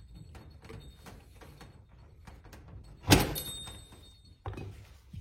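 Dust cap being pressed and knocked into a bicycle rear hub shell: light handling clicks, then one loud sharp knock with a brief metallic ring about three seconds in, and a softer knock about a second and a half later.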